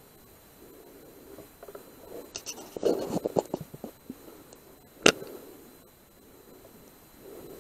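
A single sharp crack from a Benjamin Marauder .22 air rifle firing, about five seconds in. It comes after a couple of seconds of scratchy clattering and scraping.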